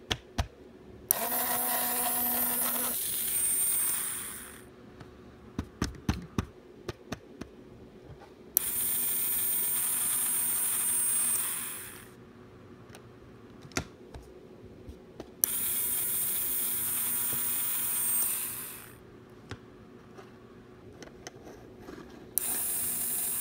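Small brushed DC motor switched on by a PIR motion-sensor relay module, starting with a sharp click and running with a high whine for about three and a half seconds before winding down; this happens four times, with light clicks from handling in between. The short run time comes from the module's timer screw being turned to the left.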